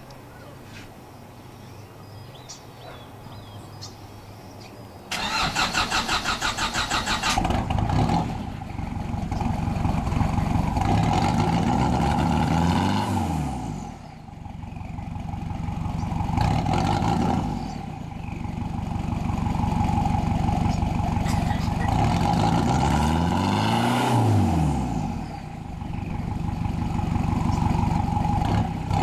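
Cold start of a straight-piped 2.7-litre turbo diesel from a Nissan Terrano, in a 1995 Nissan pickup. About five seconds in, the starter cranks for roughly two seconds before the engine catches. The engine is then revved up and down three times between spells of running.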